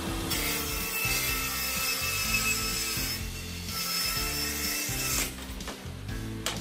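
Circular table saw ripping along the edge of a long wooden slab. The cutting noise starts shortly in, breaks off briefly near the middle, and stops about five seconds in. Background music plays underneath.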